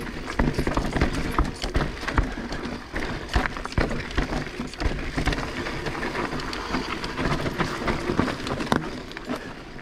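Transition Sentinel 29er full-suspension mountain bike riding down a rough dirt trail: steady rushing tyre noise with many irregular knocks and clatters as it hits bumps.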